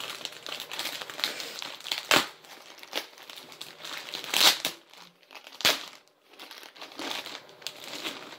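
White plastic shipping bag crinkling and rustling as it is handled and rummaged through, with three louder sharp crackles about two, four and a half, and nearly six seconds in.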